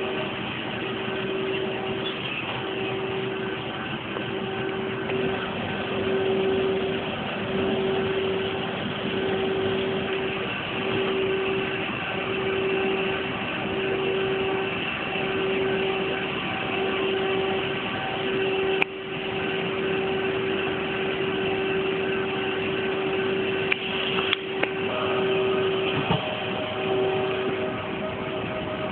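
Pesa Elf EN76 electric multiple unit standing at a platform, its onboard equipment humming steadily. A low tone pulses on and off about once a second.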